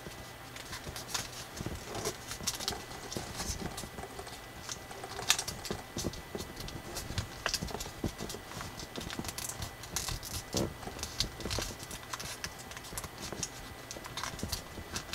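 Thick coloured drawing paper crackling and crinkling as fingers fold it and press down its creases, with irregular sharp clicks and rustles.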